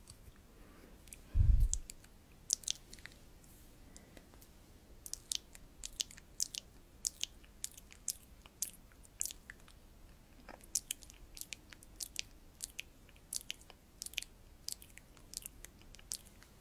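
Sticky, wet clicks of a liquid lipstick applicator wand being worked and dabbed close to the microphone, irregular, about two or three a second. A single low thump about a second and a half in is the loudest sound.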